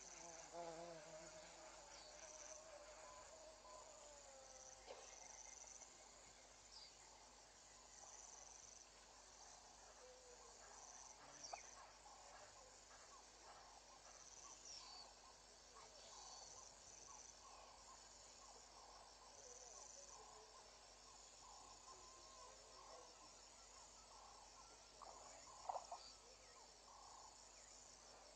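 Faint bush ambience of insects, crickets by their sound, trilling high-pitched in on-and-off stretches, with faint wavering calls lower down and a couple of soft clicks.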